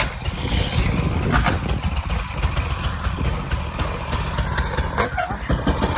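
An engine idling steadily, with a dense low rumble and quick crackles over it.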